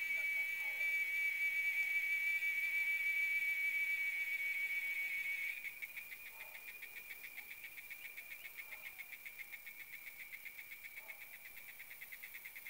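Cicada calling with a steady, high, ringing buzz. About five and a half seconds in it drops in loudness and breaks into a fast, even pulsing rattle.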